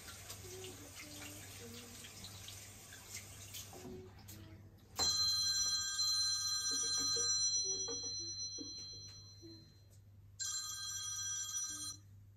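Water running from a bathroom tap, stopping about four seconds in. About a second later a mobile phone starts ringing, a bright ring of several steady tones that fades away, and it rings again near the end, the call she then answers.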